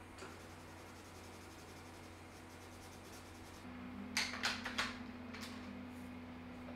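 Coloured pencil scratching on paper in quick, repeated shading strokes. About four seconds in, wooden Derwent Artists pencils clack against each other and the metal tin as one is picked out: four sharp clicks close together, then two more.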